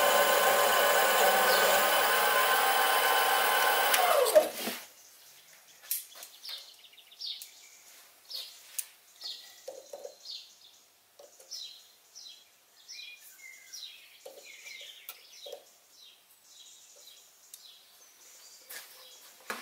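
Sieg SC3 mini lathe running through a light turning cut on a 1/4 inch silver steel pin, a steady machine whine with several steady tones. About four seconds in it is switched off and spins down with a falling pitch. After that come light clicks and knocks of handling, with faint, short high chirps.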